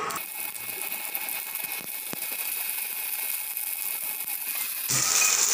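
Sliced shallots and mustard seeds sizzling in hot oil in a frying pan: a steady hiss with a couple of sharp pops, which changes abruptly near the end.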